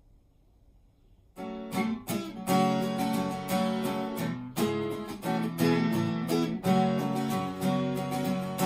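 Acoustic guitar strummed in chords, starting about a second and a half in after near silence.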